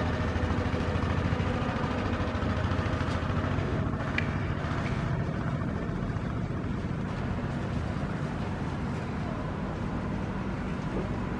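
Steady low rumble of engines and road traffic, with a brief high chirp about four seconds in.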